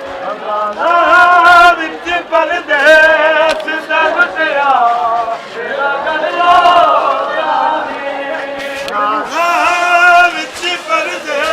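Male voices chanting a Punjabi nauha, a Muharram lament, in long wavering sung lines with short breaks between them. A few sharp knocks come through now and then.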